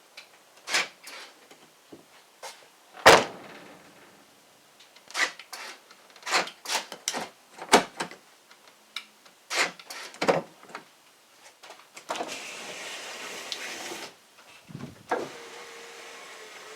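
Door of a 2004 GMC Sierra 2500 pickup being tested after a door handle replacement: a series of sharp clicks and clunks from the door lock and handle, then a power window motor running for about two seconds about twelve seconds in. Another clunk follows, then a steady hum near the end.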